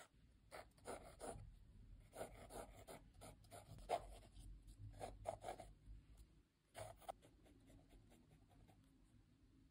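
Mechanical pencil with 2B lead scratching across sketchbook paper in quick, short hatching strokes, coming in clusters and growing fainter over the last couple of seconds.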